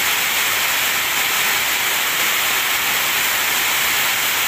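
Very heavy rain, a loud, steady, even hiss of water pouring down and beating on a sheet-metal shop roof.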